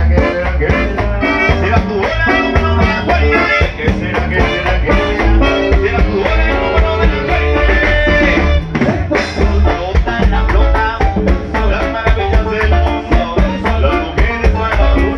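Live band playing a dance medley, with saxophones over bass and drums.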